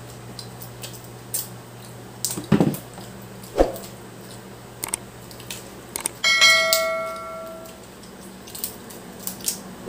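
Eating sounds from a crab boil: scattered clicks of crab shell being handled and bitten, with two sharper cracks a few seconds in. About six seconds in, a metal dish or utensil clinks once and rings for about a second.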